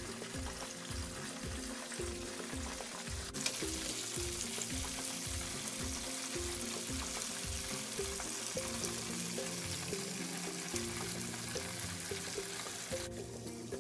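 Oat-coated chicken wings deep-frying in a pan of oil: a steady sizzle of bubbling oil that grows louder about three seconds in and eases near the end. Background music with a steady beat plays under it.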